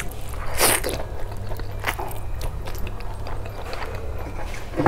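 Close-miked eating of fried eggs: wet bites, chewing and mouth clicks, with a louder squelching bite about half a second in and another near two seconds.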